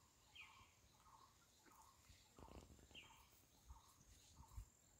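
Near silence outdoors with faint bird calls: a soft note repeated a few times a second and a brief falling chirp about every three seconds. A few soft low thumps come about halfway through and near the end.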